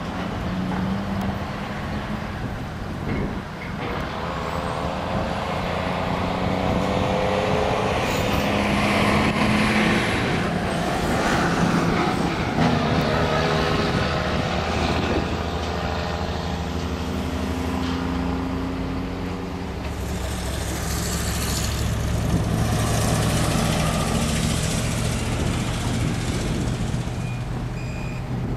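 Heavy vehicle engines, trucks or similar machinery, running and revving, their pitch rising and falling. A reversing beeper sounds near the end.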